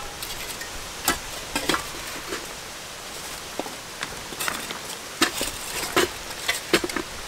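Backfill soil and rocks being packed down with a long tamping bar: irregular dull thuds and gritty crunches of the bar striking the ground, some sharper clacks where it hits stones.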